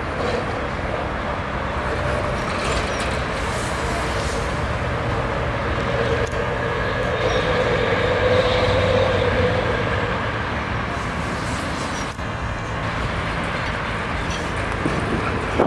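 Red DB shunting diesel locomotive running as it moves along the track, a steady engine drone that grows louder towards the middle and then eases off.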